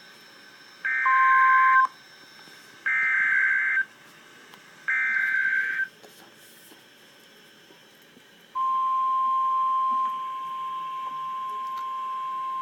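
Emergency Alert System SAME header: three one-second bursts of shrill two-tone digital data, about a second apart. After a short gap, the steady single-pitch NOAA Weather Radio warning alarm tone starts about two-thirds of the way in and holds, dropping a little in loudness shortly after it begins.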